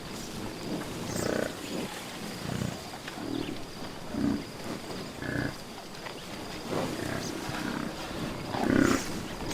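Buffalo grunting and snorting: a series of short, low grunts about once a second, the loudest near the end.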